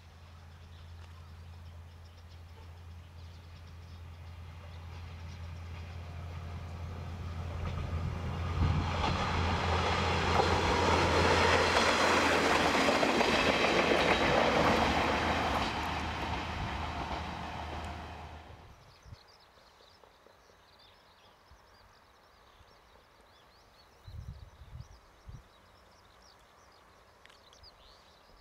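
Kanto Railway diesel railcar passing: a low, steady hum builds as it approaches, the run of wheels on rail is loud for several seconds in the middle, then the sound fades and stops about two-thirds of the way in.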